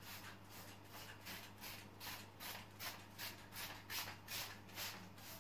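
Hand trigger spray bottle of soapy water spritzing in quick, repeated squirts, about three a second.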